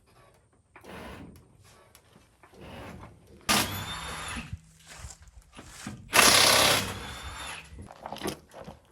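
Handheld power tool running in two loud bursts of about a second each, with quieter shorter runs before them, typical of bolts being driven out during a truck teardown.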